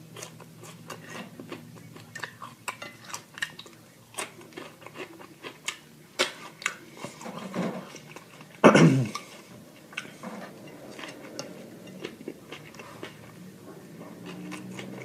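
Close-miked chewing of food, with frequent wet mouth clicks and small crunches. A louder sound that drops in pitch comes about nine seconds in.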